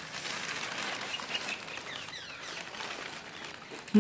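Wind and the rustling of a large newspaper sheet folded into a boat, a steady hiss, with a few faint bird chirps about a second in.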